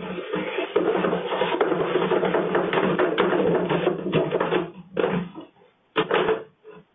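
A cat exercise wheel spinning fast under a running cat: a steady rumble with a dense run of clattering clicks that stops about four and a half seconds in, followed by a few short knocks.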